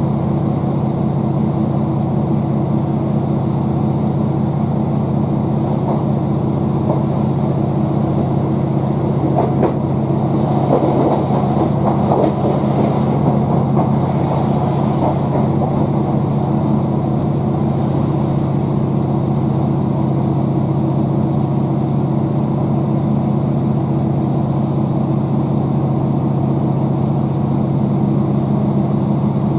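Steady low drone of a Class 769 train's underfloor MAN D2876 six-cylinder diesel engine together with wheel and track noise, heard inside the coach. A stretch of louder rattling comes about a third of the way in.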